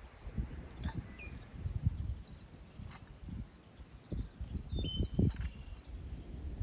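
Outdoor rural ambience: small birds chirping in short high trills over a steady thin high-pitched hum, with a low rumble and a few soft knocks.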